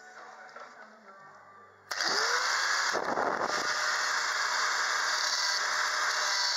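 Angle grinder with a thin cutting disc switched on about two seconds in. Its motor whine rises briefly as it spins up, then it runs steadily at full speed.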